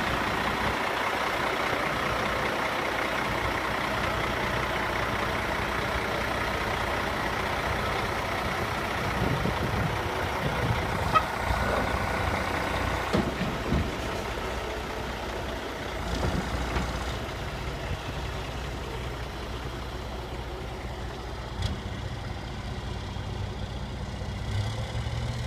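Mercedes MBE 4000 diesel of a Freightliner M2 dump truck running steadily while the hydraulic hoist raises the steel dump box. The sound eases slightly about halfway through.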